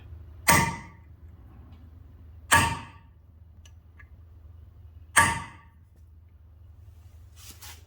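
Three hammer blows on a steel center punch, evenly spaced about two and a half seconds apart, each with a short metallic ring, marking the centre of a broken bolt in a cast iron small block Chevy 350 engine block for drilling.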